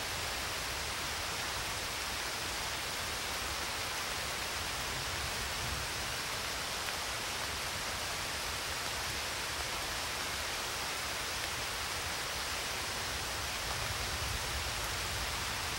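A steady, even hiss of noise that holds one level throughout, with a low rumble underneath and no distinct events.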